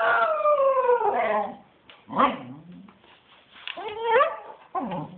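Cocker spaniel howling: one long call falling in pitch over the first second and a half, then three shorter yowls, the last two bending up and down.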